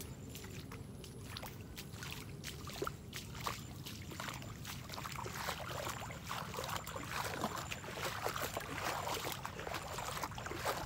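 Wind rumbling on the microphone, with rustling and light splashing from walking through wet, waterlogged grass, growing busier about halfway through.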